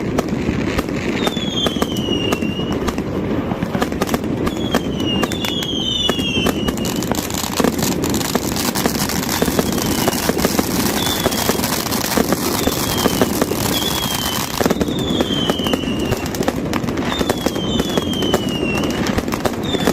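Fireworks and firecrackers going off in dense crackling volleys. Short falling whistles from whistling fireworks repeat every second or two over a steady crowd din.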